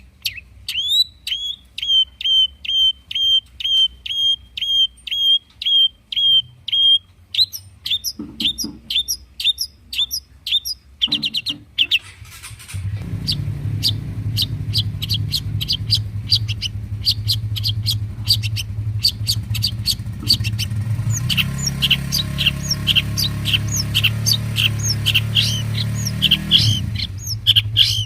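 Long-tailed shrike (cendet) singing: a fast, even series of repeated sharp calls, about two or three a second, then quicker varied chattering calls. A low steady hum comes in about halfway through.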